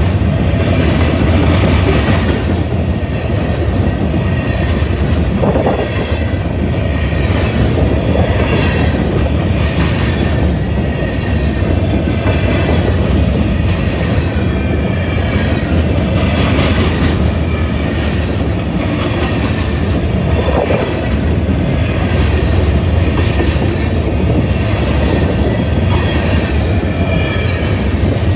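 A Union Pacific grain train's freight cars rolling past steadily, with a continuous rumble, the clickety-clack of wheels over rail joints and a faint high wheel squeal.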